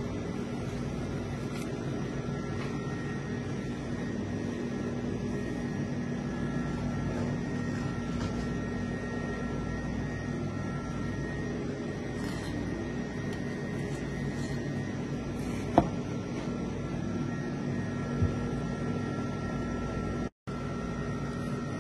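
Steady mechanical hum with a few constant low pitches and faint steady high tones. A single sharp click about three-quarters of the way through, and the sound cuts out for a moment near the end.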